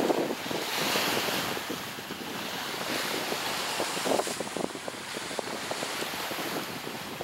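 Sea surf washing against the rocky shore below, a steady rush that swells and eases, with wind gusting and crackling on the microphone.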